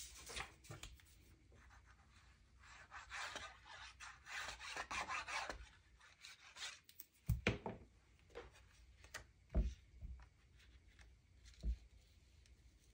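Soft rubbing and rustling of cardstock and patterned paper as it is handled, glued and smoothed down by hand, followed by a few light knocks against the mat in the second half.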